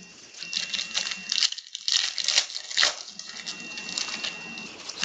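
Trading cards being flicked through and handled, a run of quick, irregular snapping and slapping clicks.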